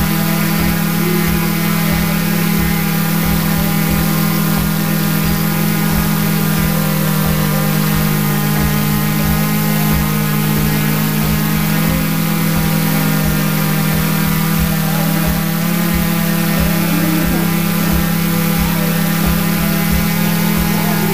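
Multirotor drone's motors and propellers, heard through its own onboard camera: a loud, steady hum made of many evenly spaced tones.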